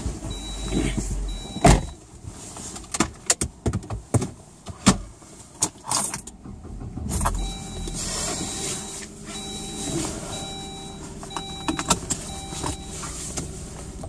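Clicks and knocks of someone moving about and handling things inside a car, with a loud thump about two seconds in. From about halfway on, the car's warning chime beeps repeatedly in short, evenly spaced tones.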